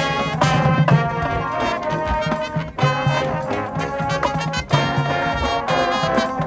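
High school marching band playing a loud passage led by trumpets and trombones, the brass holding and moving through chords in steps, with sharp percussion hits underneath.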